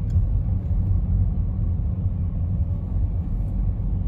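Wind buffeting the microphone: a steady, choppy low rumble with little else above it.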